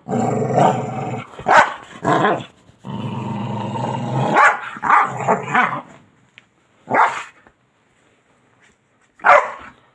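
A dog growling in two long, low stretches, then giving a few short, separate barks with quiet gaps between them, as it roots about in bedding.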